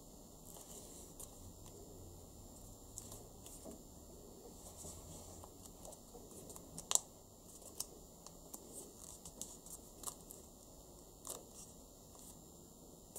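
A square of origami paper being folded and creased by hand: faint rustles and crinkles with small scattered ticks, and a sharper snap of the paper about seven seconds in.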